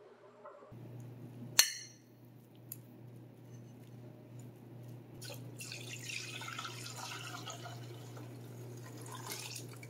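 A sharp ringing clink about a second and a half in, then chicken broth pouring from a stainless steel pot through a mesh strainer into a saucepan: a steady splashing through the second half, over a low steady hum.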